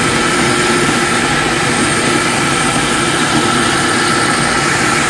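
Electric food processor running steadily at speed, kneading a savoury dough of flour, olive oil, cheese, water and herbs, with a constant high motor whine.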